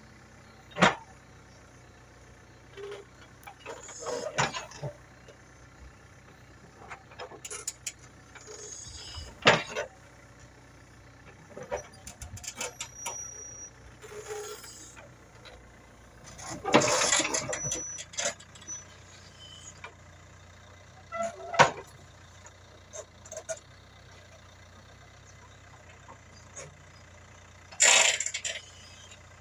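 Komatsu WB93R backhoe loader's diesel engine running steadily and low, with short loud knocks and clatters about every few seconds, six in all, the loudest near the middle and near the end.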